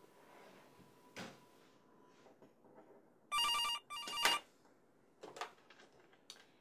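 Office desk telephone ringing: two short electronic trills back to back about three seconds in, followed by a few soft clicks as the handset is lifted.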